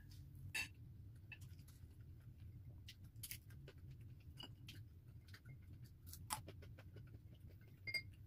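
Quiet eating at a table: scattered faint clicks and light clinks of fingers and a spoon against a ceramic plate, one clink about eight seconds in ringing briefly, over a low steady hum.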